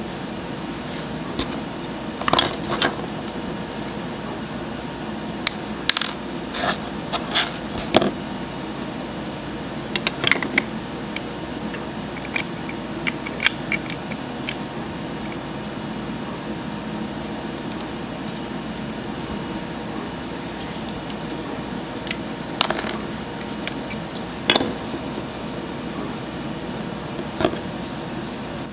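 Small metal parts clinking and tapping on a hard surface as they are handled, in scattered clusters of sharp clicks, over a steady background hiss.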